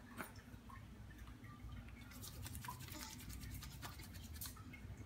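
Faint scratchy rubbing and rustling of cloth and a small plastic bottle being handled close by, with a flurry of quick small clicks from about two seconds in.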